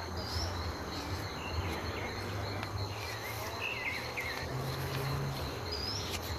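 A steady high insect trill, with a few short chirps that bend in pitch and a low rumble underneath.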